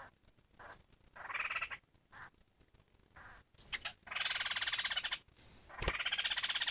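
Laughingthrush calling: a few short calls, then two long, fast-pulsed rattling phrases of about a second each, starting about four seconds in.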